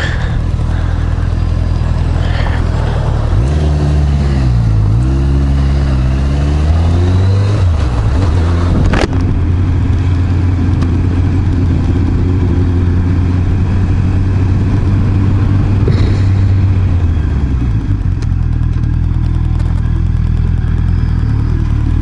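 Honda CB650R's inline-four engine running under way: the revs dip and climb again a few seconds in, fall off, then hold steady before easing down, over a steady rush of wind and road noise.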